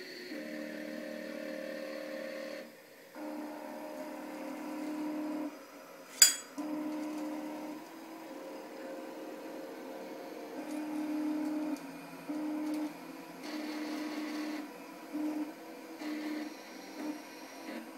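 A homemade aluminium robot arm's electric motors whining in stop-start runs of steady pitch as the arm moves, with one sharp click about six seconds in.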